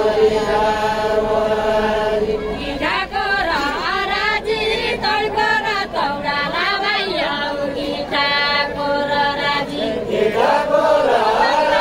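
A line of men singing a Deuda song together, unaccompanied, in long drawn-out held notes that break into wavering phrases and settle back into held notes.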